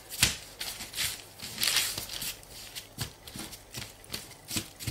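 Hands kneading a ball of egg pasta dough on parchment paper over a wooden table: irregular soft thumps as the dough is pressed and pushed, with brief rustles of the paper.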